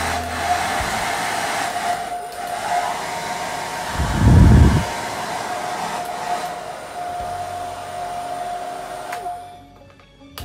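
Braun hair dryer running: steady blowing hiss with a constant motor whine. A short, loud low thump about four seconds in, and the sound drops away just before the end.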